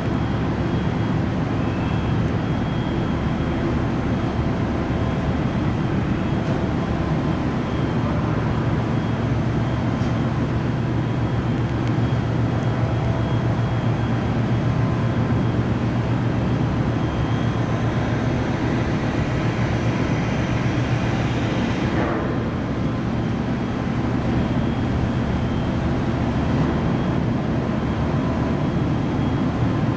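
Car ferry Esan 2000's engines and machinery running with a steady low drone, heard on deck while the ship berths. A faint rising whine joins in and cuts off suddenly about 22 seconds in.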